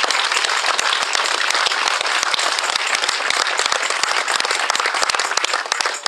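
Crowd applauding, many hands clapping steadily, dying down at the very end.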